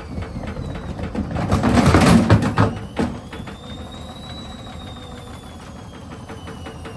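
Elin front-loading washing machine on a spin with its door open: loud, jumbled thumping and clattering for about the first three seconds, then the drum's motor whine rises and falls in pitch over rapid, regular ticking.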